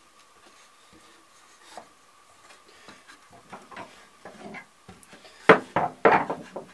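A wooden fixture and clamps being handled against a cast-iron bench vise: soft rubbing and light knocks that build up, then a few sharp wooden clunks about two thirds of the way in. A faint steady hum sits underneath.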